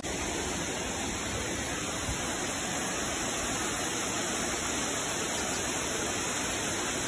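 Tall waterfall in the Los Tilos laurel forest: water falling onto rock in a steady rush that sounds like rain.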